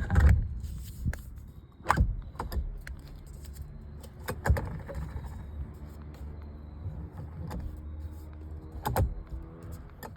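Scattered knocks, clicks and rattles of a steering wheel and quick-release hub being handled and fitted, about half a dozen sharp knocks over a steady low hum.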